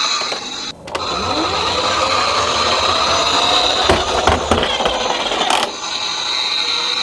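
Toy minicars rolling down a slope, the wheels whirring with a pitch that rises over about three seconds as they pick up speed. A couple of knocks come near the middle.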